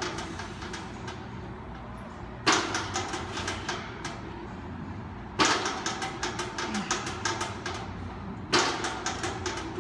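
Barbell and weight plates clanking during bench presses in a rack: three sharp metallic clanks about three seconds apart, each followed by a short rattle that dies away.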